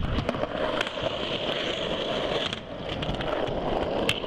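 Skateboard wheels rolling over pavement, a steady rolling noise with scattered clicks and knocks from the board.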